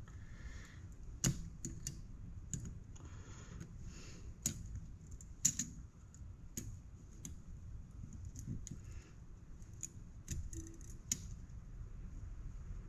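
Irregular sharp metal clicks and brief scraping as small steel retaining parts are pressed and worked by hand into the billet case of a Halo differential locker.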